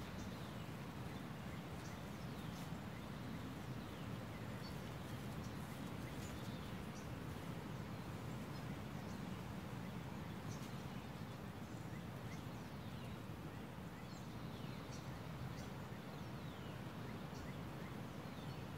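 Outdoor ambience: a steady low background noise with many short, faint bird chirps scattered throughout.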